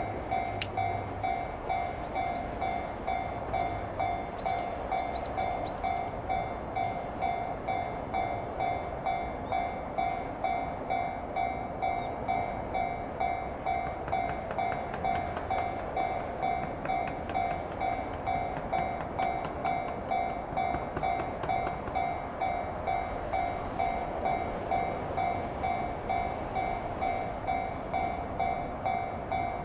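Electronic warning bell of a Japanese railway level crossing ringing in a steady, evenly repeating ding.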